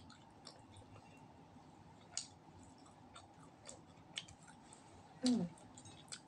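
Close-up eating sounds of roast duck being chewed and picked at with the fingers: scattered soft clicks and wet smacks. About five seconds in comes a brief vocal sound that falls in pitch.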